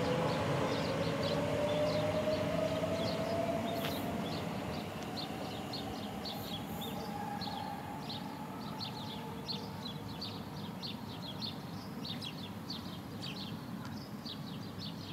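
Elizabeth Line Class 345 electric train pulling away, its traction motors giving a whine that rises in pitch over the first few seconds as it accelerates, then fading as it leaves. Birds chirp throughout, clearer in the second half.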